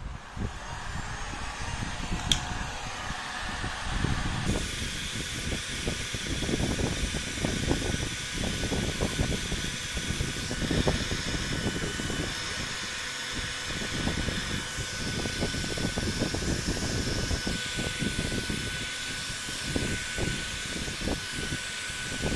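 iBELL HG20-82 2000 W heat gun running, blowing hot air through a flat nozzle onto a UPVC pipe tee: a steady rush of air with an uneven low rumble and a faint steady whine. The hiss grows fuller about four seconds in.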